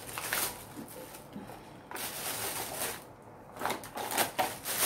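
Thin plastic shopping bag rustling and crinkling as groceries are pulled out of it, with a few sharper crackles about four seconds in.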